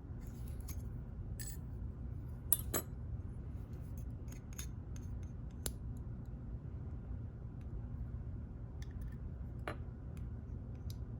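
Small metal lock parts clicking and tapping as a pin-tumbler challenge lock is taken apart. A handful of sharp clicks, the loudest pair close together a little under three seconds in, over a steady low hum.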